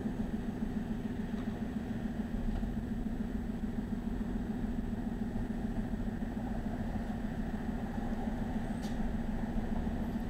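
Aston Martin Vantage S convertible's engine idling steadily, with an even low pulse and no revving.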